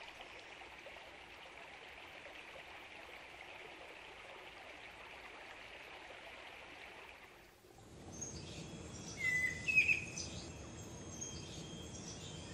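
A faint steady hiss. Near eight seconds in it gives way to outdoor ambience with short chirping bird calls, loudest about two seconds later, over a low background rumble.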